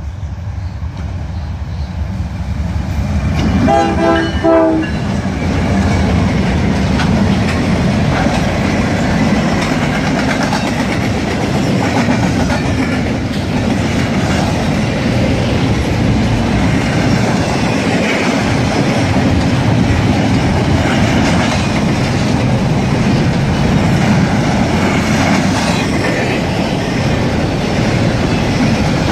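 A diesel freight train's horn sounds briefly about four seconds in as it reaches the grade crossing. A double-stack container train then rolls past with a steady clatter of steel wheels on the rails.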